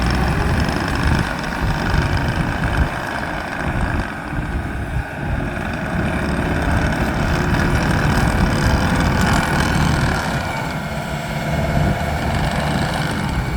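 Diesel engine of a Bobcat T770 tracked skid steer loader running steadily, its loudness swelling and easing a little.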